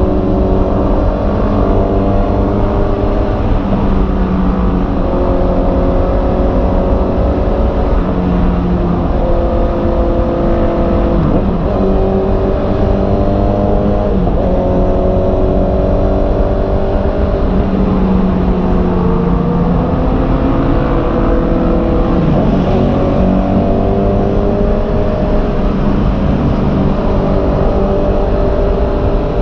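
Honda CB650R's inline-four engine running under way, its pitch holding for a few seconds at a time and then shifting up or down, over steady wind rumble.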